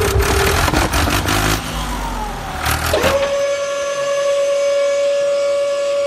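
Small electric motor of a toy tipper trolley's screw-driven lift whining at a steady pitch. The whine sags lower while miniature concrete bricks clatter and slide off the tipped bed for the first second and a half, with another short clatter about three seconds in, then returns to its steady pitch.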